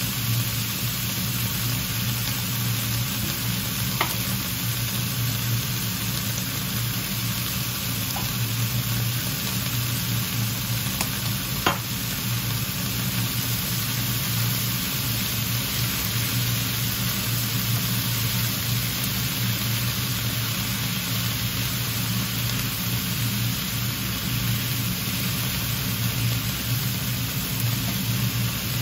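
Rice vermicelli and cabbage sizzling in a frying pan as they are stirred and tossed with wooden chopsticks: a steady frying hiss over a low steady hum, with a couple of light clicks about four and twelve seconds in.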